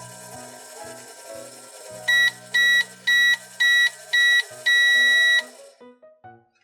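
Microwave beeping: five short high beeps about half a second apart, then one longer beep, the signal that the timer has run out. Light background music plays throughout.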